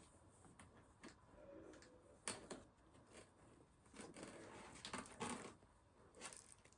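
Faint handling noises: a light click about two seconds in, then soft rustling of a paper tissue being pulled from a glass jar, with a last rustle near the end.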